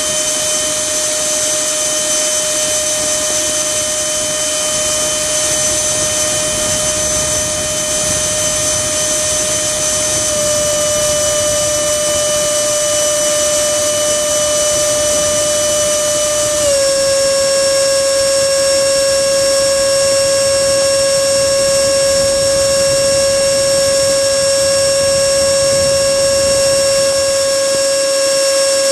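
64 mm electric ducted fan, driven by a 4200 kV brushless motor, running with a steady high-pitched whine over a rush of air; about two-thirds of the way through the pitch steps down slightly and then holds.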